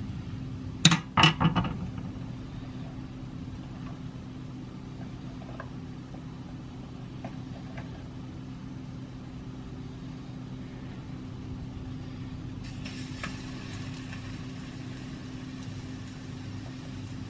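Steady low hum of a kitchen range hood fan over the stove. A few sharp knocks come about a second in, and a faint scratchy hiss joins near the end.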